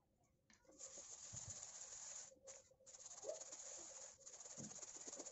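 Metal pot of seasoned flour being shaken to coat diced chicken pieces: a steady dry hiss of flour swishing around the pot, starting about a second in and broken by a few brief pauses.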